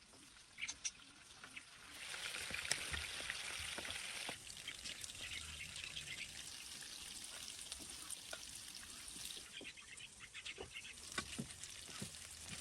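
Liquid being poured, a hiss that swells about two seconds in and then carries on more softly, with scattered small clicks and knocks.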